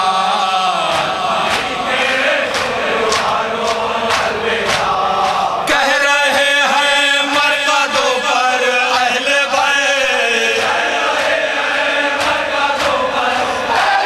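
Noha, a Shia lament, sung by a man through a microphone and chanted back by a crowd of men, with the rhythmic slaps of hands beating on chests (matam) keeping time. A fresh, louder sung line comes in about six seconds in.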